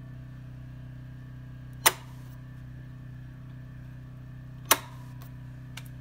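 Two sharp clicks, about three seconds apart, as rocker switches on a Reliance Pro/Tran manual transfer switch are flipped from line to generator. Under them runs the steady low hum of the running generator.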